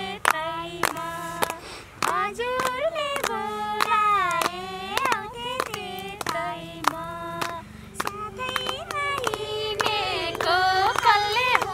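Women and a girl singing a Nepali dohori folk song together, with steady hand-clapping in time with the song.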